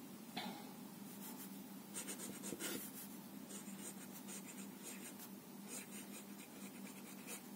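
Stainless steel nib of a Staedtler Initium Metallum fountain pen scratching faintly across Rhodia pad paper as words are written in cursive. It runs as a continuous light scratch, with a few slightly louder strokes.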